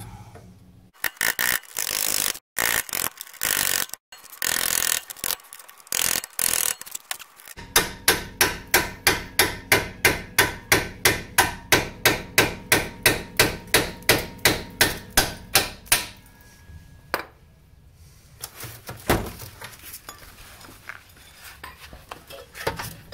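Hammer driving a chisel against the steel outer sleeve of a Chevy Aveo rear axle bushing, folding it inward to free it from the trailing-arm bore. The blows come irregularly at first, then settle into a steady run of about four a second for some eight seconds, then thin out to a few scattered strikes.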